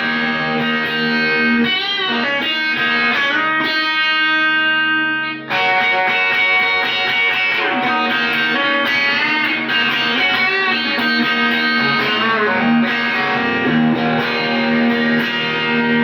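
Telecaster-copy electric guitar with new budget pickups, played amplified: ringing chords and single notes with a few bent notes, broken by a short pause about five and a half seconds in.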